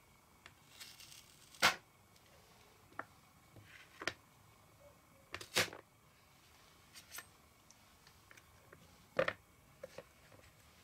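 Kitchen knife cutting through a carrot slice and striking a plastic cutting board: a few short, crisp cuts spaced seconds apart. The loudest come about a second and a half in, near the middle, and about nine seconds in.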